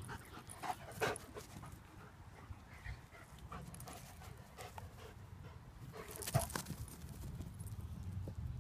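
A dog panting and running on grass close by. A few sharp knocks come about a second in and again about six seconds in.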